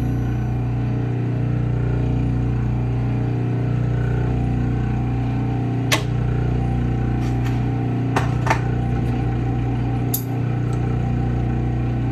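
Clipper-blade sharpening machine running steadily, its motor turning the charged grinding plate with a constant low hum while a clipper blade is ground on it. A few sharp clicks come about halfway through and again a few seconds later.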